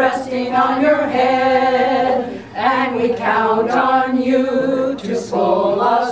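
A small group of women singing a song together, unaccompanied, with short breath pauses about two and a half seconds and five seconds in.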